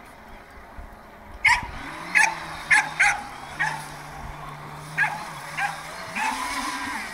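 A dog barks and yelps in short, sharp, high-pitched bursts, about eight times. Underneath, the electric motor of a Joysway Bullet RC speedboat hums steadily and rises in pitch about six seconds in.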